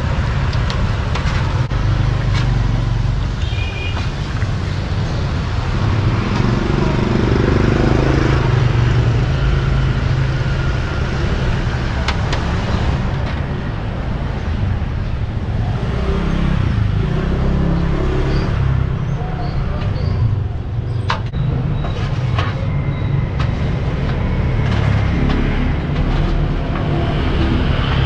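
Bánh tiêu dough frying in a basin of hot oil, sizzling over a steady low rumble of street traffic and passing motorbikes, with a few sharp clicks of metal tongs against the pot.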